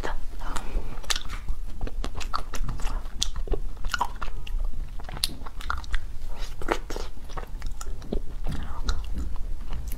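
Biting and chewing a frozen peach-shaped ice cream bar, with many small irregular crunches and clicks as the frozen bar breaks in the mouth.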